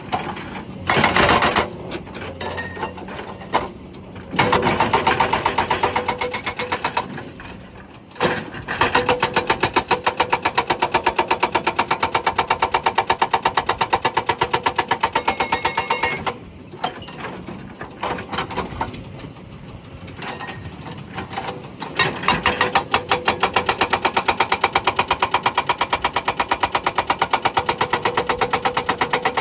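Hydraulic rock breaker on a Komatsu PC200 excavator hammering rock in long runs of rapid, even blows, stopping twice for a few seconds while the excavator's engine keeps running.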